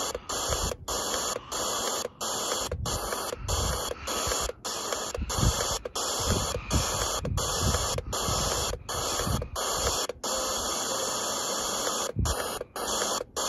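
FM static hiss from a Borne portable radio's speaker as it is stepped up the band between stations. The hiss cuts out briefly and comes back about every half second, once for each press of the tuning button.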